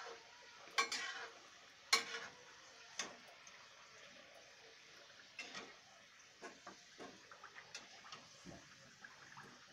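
A metal slotted spoon clinks and scrapes against a steel kadhai as kachoris are turned in hot oil. There are a few sharp clinks in the first three seconds, then lighter taps, over a low steady hiss of frying oil.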